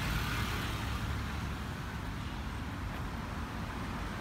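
Steady road traffic noise from a busy city street: a continuous low rumble with a hiss from passing cars and motor scooters.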